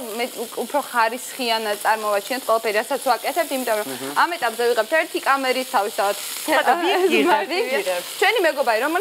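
Meat patties frying in a pan, sizzling steadily, with a woman talking over the sizzle.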